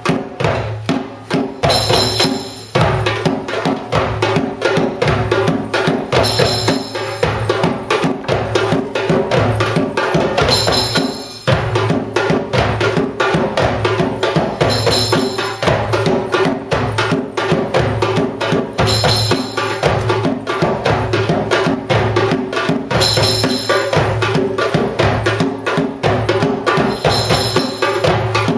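Several darbukas (goblet drums) played together in a fast, steady rhythm of many sharp strokes, with a brief high ringing accent about every four seconds.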